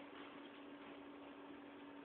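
Near silence: room tone with a faint steady hiss and a low hum.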